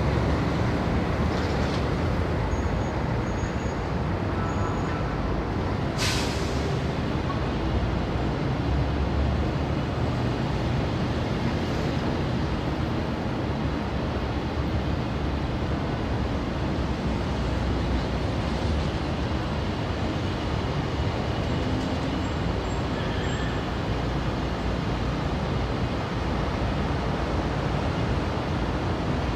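City street traffic in India: cars, motorbikes and auto-rickshaws running and passing in a steady wash of engine and tyre noise. About six seconds in there is a sudden sharp hiss that fades over a second.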